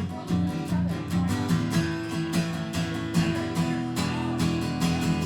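Instrumental break of a song: guitar strummed in a steady rhythm, no singing.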